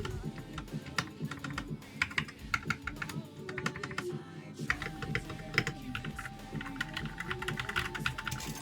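Mechanical keyboard with Akko Cream Yellow V3 Pro linear switches being typed on in quick runs of key presses, which click and clack. The switches are unlubed.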